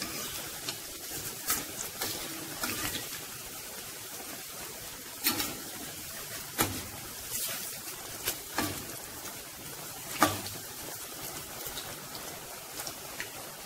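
Potato-onion bondas deep-frying in hot groundnut oil: a steady sizzle, with scattered sharp clicks of a metal slotted skimmer against the pan as the bondas are turned over.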